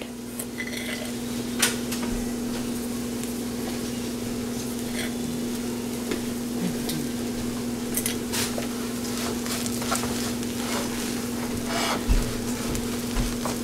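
A spoon stirring and mashing potato-and-pea filling in a frying pan while the oil sizzles, the spoon clicking against the pan now and then. A steady hum runs underneath.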